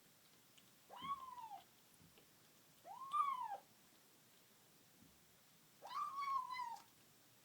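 Domestic cat making short meow-like vocal sounds while eating, three times, each call rising and then falling in pitch, the last one the longest.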